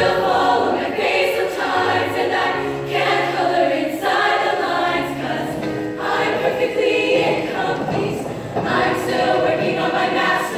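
Show choir of mostly women's voices singing together in harmony, largely without accompaniment.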